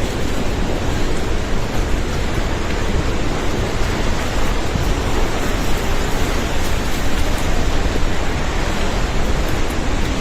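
Loud, steady rushing of a river in flash flood, a dense unbroken wash of water noise.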